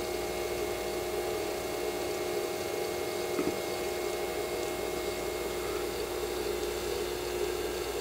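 Laser Stars star projector running, its small wheel motor making a steady hum with a few even tones. The wheel is turning again now that a broken wire has been resoldered. There is a faint knock about three and a half seconds in.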